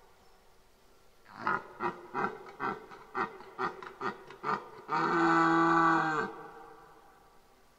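Red deer stag roaring in the rut: a run of about nine short calls in quick succession, each dropping in pitch, then one long held roar of about a second and a half.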